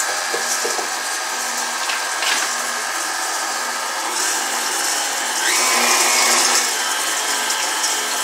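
Electric stand mixer running steadily, its beater stirring dry rolled oats, coconut flakes, pumpkin seeds, pecans and cacao nibs in a stainless steel bowl. The motor runs briefly louder a little past halfway.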